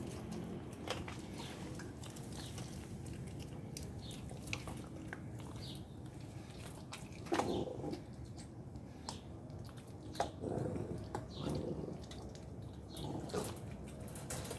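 Two blue nose pit bull puppies chewing and tearing at a piece of raw steak, with scattered wet clicks of biting and a few brief puppy vocal sounds.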